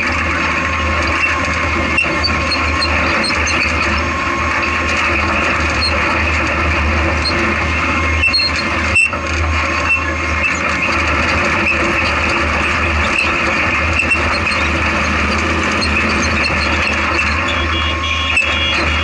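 Off-road race car's engine running steadily under load, heard from inside the open cockpit, with occasional knocks from the chassis over rough ground and one sharp knock about nine seconds in.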